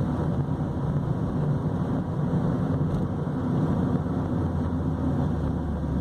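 Engine and road noise inside the cabin of a 2005 Chevrolet Corsa Sedan with its 1.8 four-cylinder engine, running steadily while driving.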